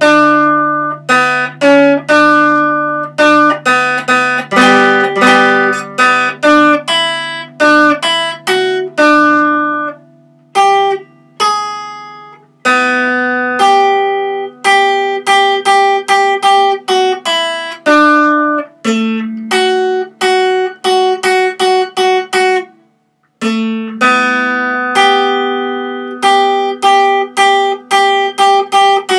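Acoustic guitar picked with a plectrum, note after note in a quick, even run, with a short pause about three-quarters of the way through.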